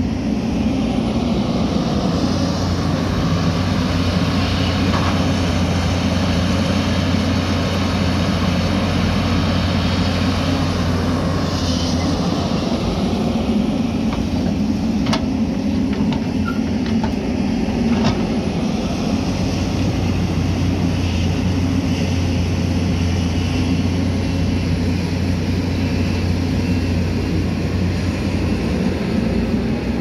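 Hyundai 220 excavator's diesel engine running steadily as it works, with a few sharp knocks of rock and soil near the middle as the bucket dumps its load.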